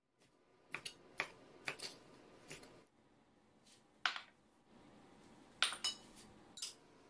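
A small spoon clinking and tapping on a ceramic bowl as seasonings are spooned onto raw fish pieces: about a dozen sharp clinks in loose clusters, over a faint hiss.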